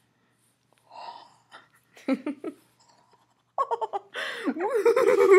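Women laughing: a breathy gasp about a second in, a short laugh around two seconds, then loud laughter from about three and a half seconds.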